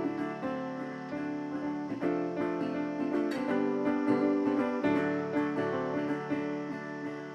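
Background music led by strummed guitar.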